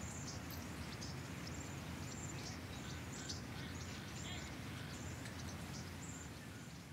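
Outdoor ambience: a steady background hiss and rumble with faint, short, high chirps of small birds, fading out near the end.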